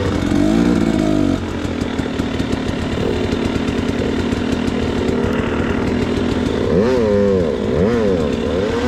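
2019 KTM 250 XC two-stroke dirt bike engine running at low speed with the throttle worked on and off through tight going. Several quick revs rise and fall near the end.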